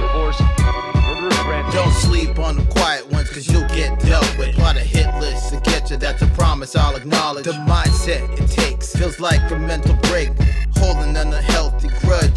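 Hip hop track with rapping over a heavy bass line and a steady drum beat.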